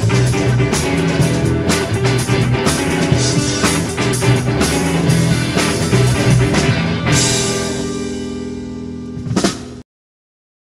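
Live rock band, a drum kit with guitars and bass, playing the instrumental ending of a song: busy drumming for about seven seconds, then a final chord held and fading with a bright cymbal wash, one last hit, and the sound cuts off abruptly near the end.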